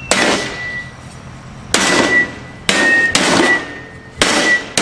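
Metal body of an old toaster oven being struck hard four times, each blow followed by a short metallic ring.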